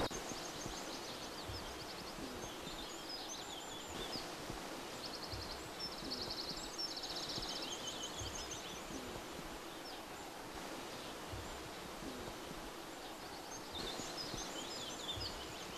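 Outdoor ambience with birds singing: rapid, evenly pulsed high trills around five to seven seconds in, and scattered chirps, over a steady background hiss.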